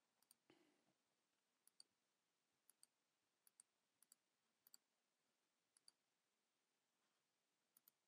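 Faint computer mouse clicks, about six of them spaced irregularly, over near silence.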